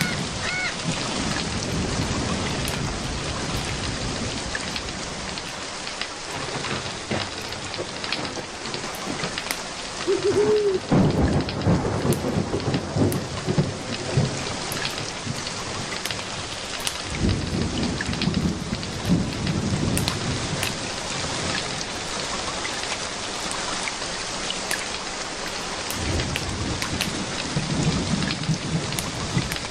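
Steady rain with three rolls of thunder, the loudest about a third of the way in, and the crackle of a wood fire.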